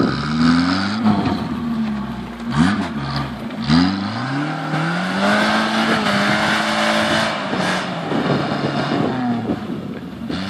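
Suzuki Samurai engine revving under load as the 4x4 climbs a snowy slope. The revs rise and fall, dip sharply twice in the first four seconds, then climb and hold high before easing off near the end.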